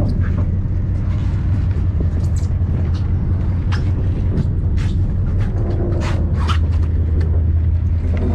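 A large charter fishing boat's engine running with a steady low hum. Several sharp clicks and taps come and go over it in the middle of the stretch.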